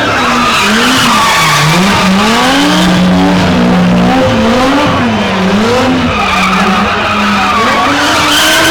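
BMW E30 spinning car's engine revving hard, its pitch swinging up and down about once a second and held steady for a moment near the middle, over tyre noise from the wheelspin.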